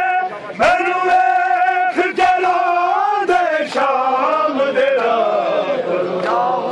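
A group of men chanting a Muharram noha refrain together in long, held, wavering notes, with a few sharp slaps cutting through in the first half.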